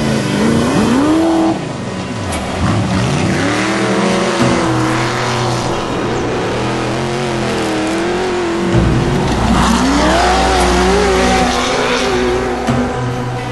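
Off-road race vehicle engines revving hard, their pitch climbing and dropping again and again with throttle and gear changes. A deeper rumble joins about nine seconds in.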